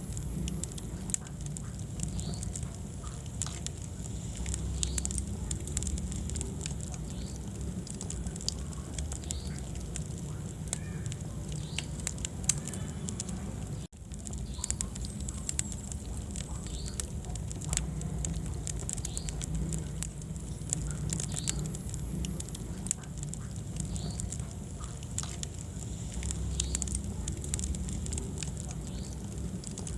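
Wood fire crackling in a fireplace: frequent sharp pops and snaps over a steady low rumble of the flames, with a brief break about halfway through.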